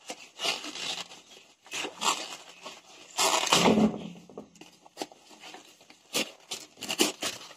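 Paper mailer parcel being torn open by hand: irregular ripping and crinkling of the paper wrapping, with the longest, loudest rip about three seconds in and a few sharp crackles near the end.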